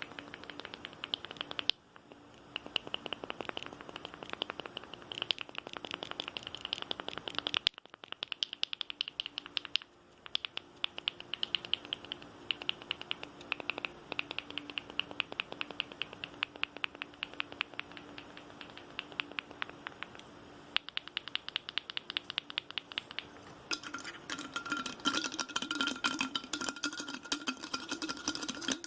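Fast, aggressive ASMR tapping: rapid fingernail taps on objects in quick runs, with brief breaks about 8 and 10 seconds in. Near the end the taps move to an object that rings with a steady tone under them.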